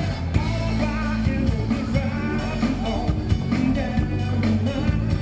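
A band playing a song with a steady drum beat and sustained bass, and a wavering lead melody above.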